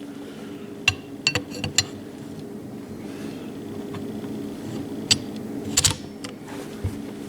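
Metal clicks and scraping of an M1A rifle's charging handle being worked back into place on the receiver, with a few light clicks about a second in and sharper clicks near the end as it seats, over a steady low hum.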